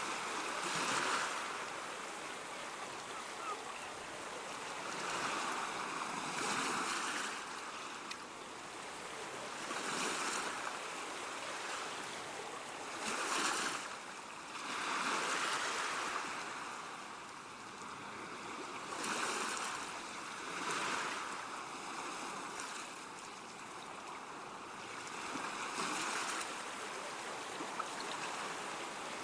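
Ocean surf: waves breaking and washing in, a rush of water swelling every few seconds and then falling back.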